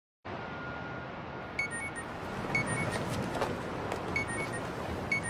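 City street ambience: a steady hum of traffic, with groups of short, high-pitched electronic beeps about once a second from about a second and a half in.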